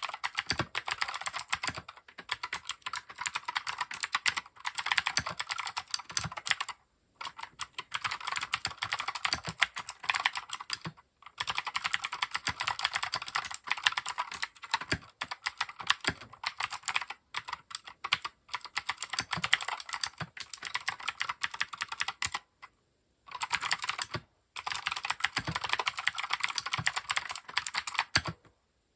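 Fast continuous typing on a Keychron K6 mechanical keyboard: dense runs of clacking keystrokes, broken by short pauses about 7, 11 and 23 seconds in, stopping just before the end.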